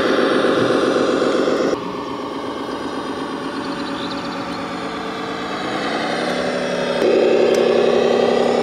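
Engine sound of a radio-controlled Komatsu HD 405 dump truck model running steadily. It turns suddenly quieter under two seconds in, climbs in pitch around six seconds in, then turns suddenly louder again at about seven seconds.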